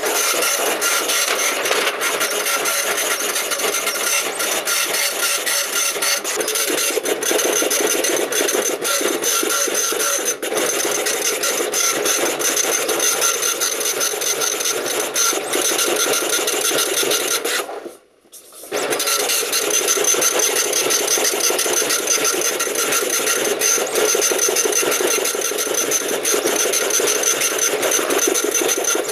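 PSI PP-404 high-speed dot matrix printer printing continuously in its 500-character-per-second data font: a dense, fast rattle of the print head with a steady high whine. About two-thirds of the way through it stops for under a second, then carries on.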